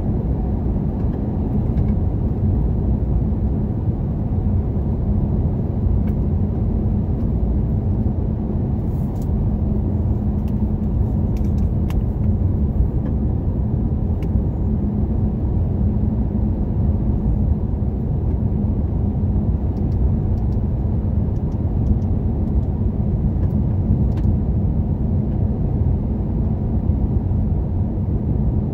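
A car driving along a paved road: steady tyre and engine rumble with a low, even hum throughout.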